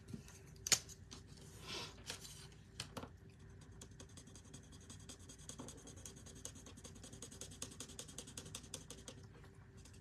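Alcohol marker nib scratching on cardstock as flower petals are coloured in with quick short strokes, a faint rapid scratching that settles into a steady run from about four seconds in. Near the start, a sharp click and a rustle as the marker is handled.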